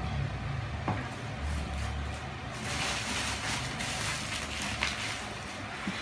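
Bubble wrap and plastic packaging rustling and crinkling as they are handled and pulled off a package, loudest from about three to five seconds in, over a low rumble.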